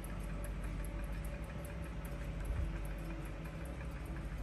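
Mechanical clocks ticking steadily over a low, steady hum.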